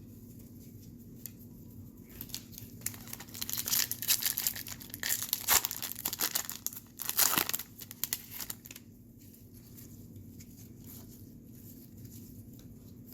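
A Topps Series 2 hobby pack's wrapper being torn open and crinkled in the hands. The crackling starts about two seconds in, peaks in the middle, and dies away about six seconds later.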